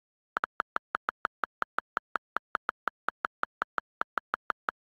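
iPad on-screen keyboard key clicks: a fast, even run of taps, about five or six a second, starting about half a second in.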